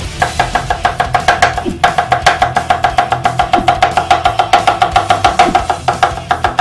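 Cleaver rapidly chopping green onion on a wooden cutting board: a fast, even run of knocks, about eight a second, each with a short metallic ring, louder from about two seconds in.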